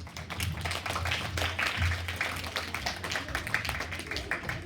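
Audience clapping, many hands at once in a dense, irregular patter.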